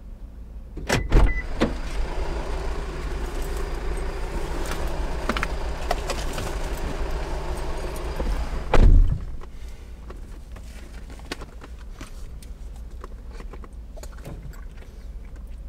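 A car door clicks open about a second in, and steady hum and noise come through while it stands open. About nine seconds in the door is shut with a heavy thump, and the sound goes quieter and muffled.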